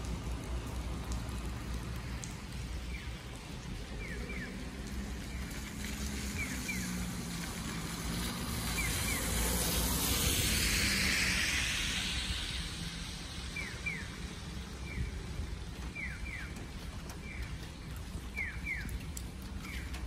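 Electronic bird-call chirps from a Japanese pedestrian crossing signal: short falling chirps, mostly in pairs, repeating about every second. They sound over wet-street ambience, with the tyre hiss of a car passing on the rain-soaked road swelling and fading about ten seconds in.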